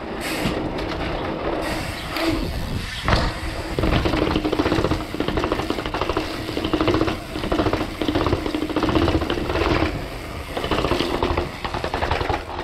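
Mountain bike rattling over rough ground on a downhill descent: a dense, rapid clatter of jolts and knocks, with a faint steady hum underneath that comes and goes.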